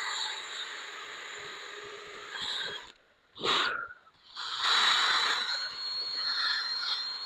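Polishing compound being rubbed over a hazy headlight lens: a steady hissing scrub that breaks off briefly about three seconds in, gives one short burst, then carries on.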